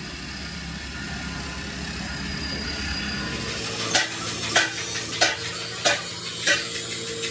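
Flat knife blade scraping across a rubber repair patch on a tractor tire sidewall: five quick strokes about two-thirds of a second apart, starting about four seconds in, over a steady low background rumble.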